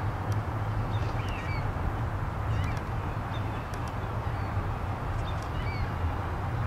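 Short bird calls, several chirps and squawks, over a steady low rumble.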